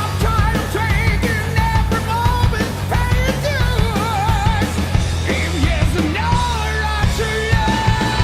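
Heavy metal song with a male singer holding notes with vibrato over distorted guitars, bass and drums.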